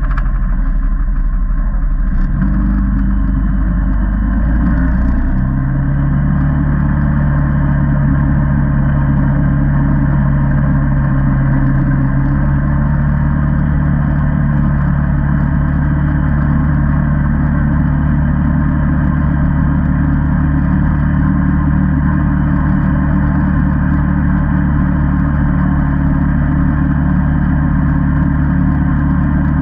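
Single-cylinder ATV engine running steadily while riding along a gravel road. Its note shifts about five seconds in, then holds steady.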